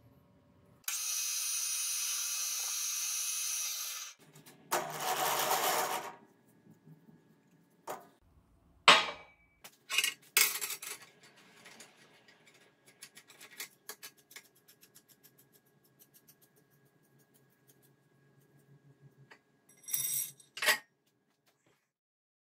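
Workshop handling of steel parts: a steady mechanical noise for about three seconds near the start, then a string of metallic knocks and clinks as the steel rod and sleeves of a homemade slide hammer are fitted together, the loudest knock about nine seconds in. Two more short bursts come near the end.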